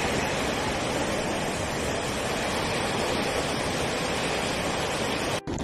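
Floodwater torrent rushing and churning along a street channel: a steady, loud noise of fast, heavy water. The sound drops out for an instant near the end.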